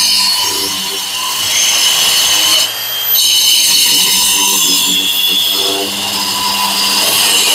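Brushless wall chaser cutting a groove into a wall, running under load with a high steady whine over a grinding hiss; the sound eases for a moment about three seconds in, then picks up again.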